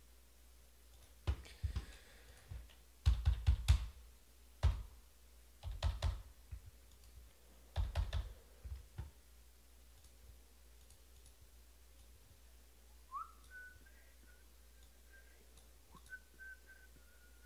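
Clusters of sharp clicks and desk thumps in the first half. Near the end come a few faint whistled notes, the first one sliding up and then held.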